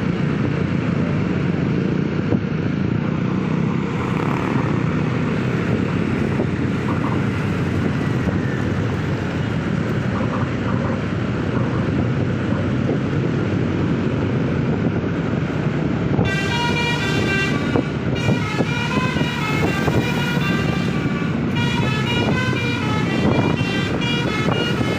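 Steady rumble of heavy vehicle engines and traffic. About two-thirds of the way in, a multi-note musical vehicle horn starts playing a quick tune of changing notes, breaks off briefly, then plays again near the end.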